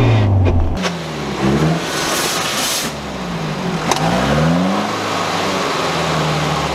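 Jeep Cherokee XJ's engine revving under load in deep mud: the revs drop, climb twice, then hold steady. A single sharp click about four seconds in.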